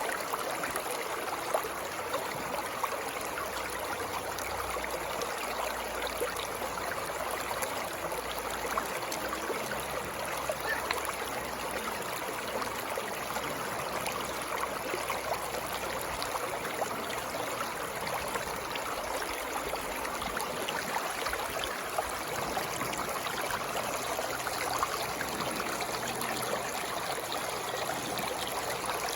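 Water flowing steadily, with many small splashes and trickles breaking through the constant rush.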